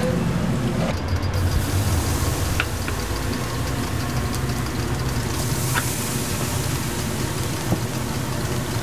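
Egg-pancake batter sizzling on a hot flat griddle as it is ladled on, the hiss starting about a second in, over a steady low mechanical hum.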